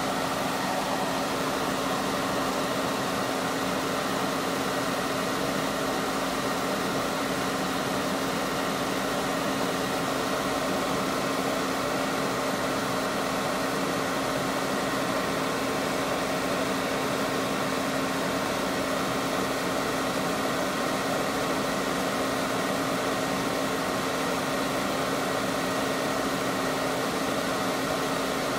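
Hot air rework station blowing steadily from its nozzle: an even rush of air with a few constant humming tones, as it reflows the solder under a QFN chip.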